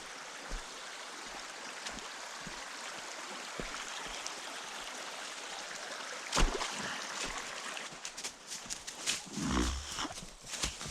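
A steady rushing hiss, then a sharp knock about six and a half seconds in, followed by scattered knocks and rustling, like footsteps through brush, over the last few seconds.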